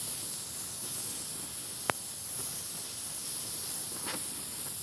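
Oxyacetylene welding torch flame hissing steadily as it melts the edges of a steel butt joint, with a single sharp click about two seconds in.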